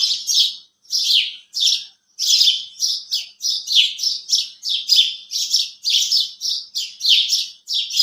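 House sparrows chirping: quick, repeated short chirps, each sweeping downward, about four a second, with a brief pause about two seconds in and then an almost unbroken run.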